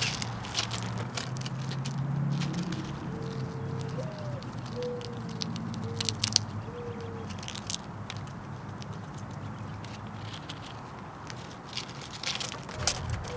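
Fox squirrel handling and cracking peanuts and seed on a wooden feeder table: scattered sharp clicks and crunches, loudest around the middle. From about three to seven seconds in, a bird gives a few short, low, repeated calls.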